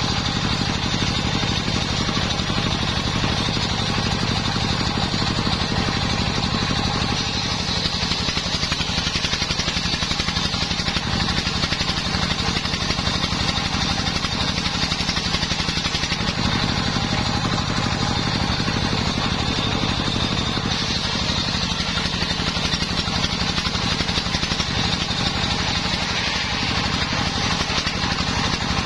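Engine-driven homemade circular saw bench ripping a mahogany log lengthwise: the motor runs steadily under load while the blade cuts, with a bright, hissing saw noise over the engine hum.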